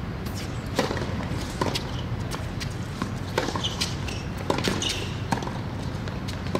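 Tennis rally on a hard court: sharp pops of racket strings striking the ball and the ball bouncing, coming roughly once a second.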